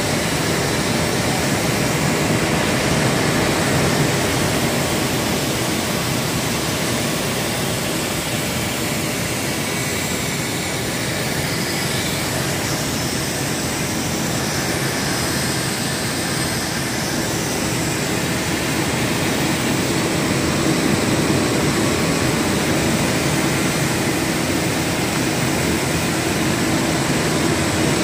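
Steady din of factory production machinery running in a large hall: a continuous rushing noise with faint steady hums.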